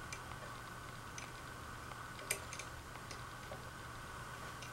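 Light clicks and taps of ceiling-fan blade parts and small screws being handled, with one sharper click about two seconds in, over a faint steady hum.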